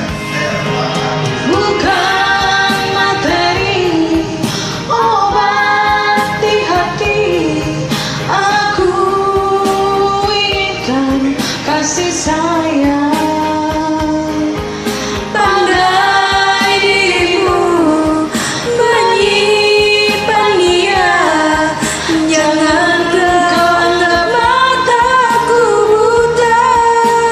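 A woman singing a slow Indonesian pop song over a karaoke backing track.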